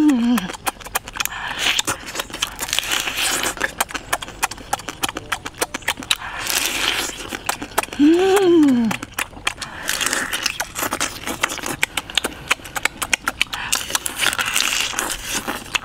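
Close-up eating sounds of a person chewing cooked crab meat: rapid wet lip-smacking and chewing clicks throughout. A short rising-and-falling "mmm" of enjoyment tails off at the start and comes again about eight seconds in.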